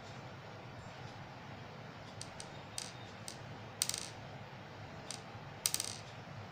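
Small beads clinking and clattering against each other and a hard surface: a few light clicks, then two short rattling clusters, one about four seconds in and one near the end, over a low steady hum.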